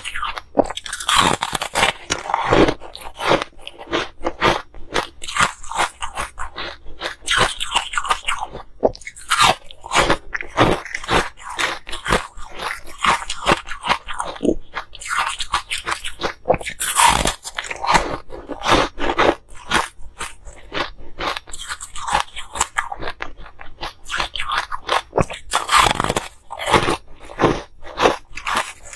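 Ice being bitten and chewed up close: frozen ice cracking and crunching between the teeth in rapid, continuous crunches, with louder bites now and then.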